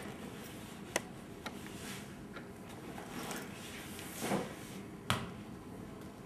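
Light clicks and rustles of a backpack being handled as a soccer ball is taken out, then a single sharp thud about five seconds in as the ball drops onto the hard floor. Low room tone throughout.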